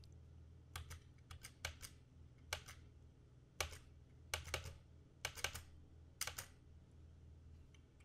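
Faint computer keyboard clicks, in small clusters of two or three, roughly one cluster a second, over a low steady hum.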